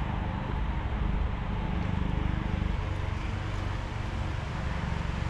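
Electric pedestal fan running close by: a steady rushing noise with a low hum.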